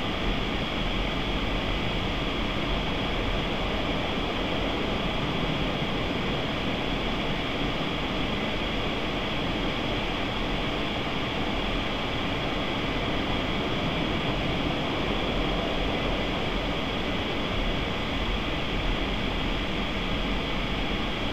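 Automatic car wash gantry running alongside the car, a steady rushing noise without let-up, heard muffled through the closed car's cabin.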